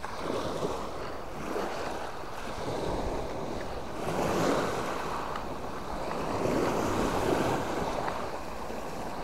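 Small waves breaking and washing up a stone beach, the surf rising and falling every second or two, with wind rumbling on the microphone.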